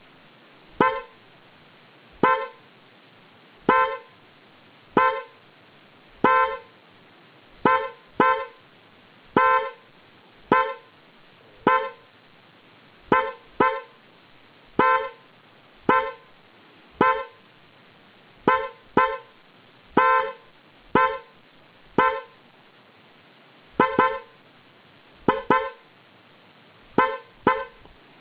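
SUN Automobile Power Horn PH002 car horn sounding in short taps, about twenty brief honks at roughly one-second spacing, several of them in quick pairs.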